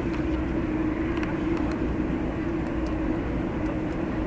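Boeing 787-10's Rolls-Royce Trent 1000 turbofan engines running at taxi power as the airliner taxis, a steady drone with a low rumble.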